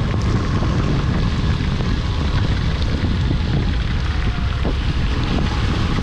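Motorcycle riding along a wet road in heavy rain, heard through a waterproof action-camera housing: a steady, muffled rush of wind on the microphone over the engine, with rain and tyre spray.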